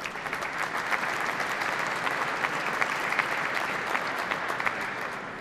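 Audience applauding, a steady patter of many hands clapping that begins to die away near the end.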